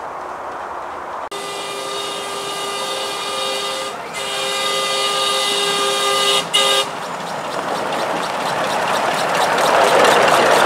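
Miniature 7¼-inch gauge live-steam locomotive sounding its steam whistle in two long blasts. It then runs close past with a hissing, chuffing rush that grows louder.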